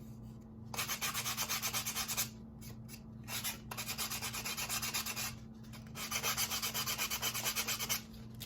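Sandpaper rubbed by hand along the rough edge of a thin wooden sign blank, smoothing it. It comes in three spells of quick back-and-forth strokes with short pauses between them.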